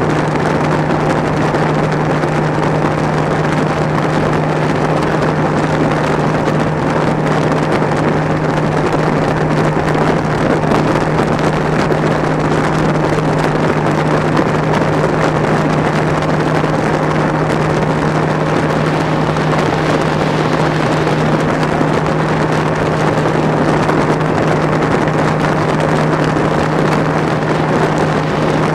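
Bass boat's outboard motor running at top speed, holding one steady pitch, with wind buffeting the bow-mounted microphone.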